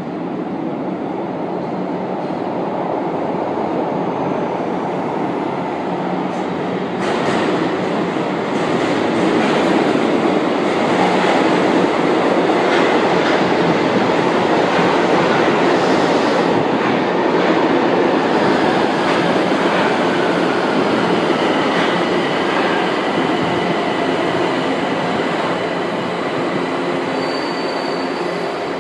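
São Paulo Metro Line 1 train arriving at an underground station: its rumble builds as it comes out of the tunnel and runs in along the platform, then eases as the train slows, with a high squeal near the end.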